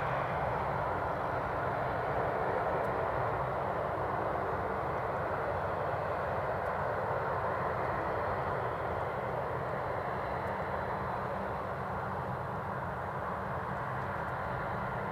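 Boeing 747-400's four jet engines running at taxi power, heard across the airfield as a steady, even rush of engine noise with no change in pitch.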